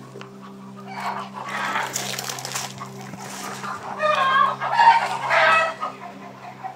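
Chicken calls, rooster crowing and clucking, in two bouts: one about a second in and a louder one about four seconds in, over a steady low hum.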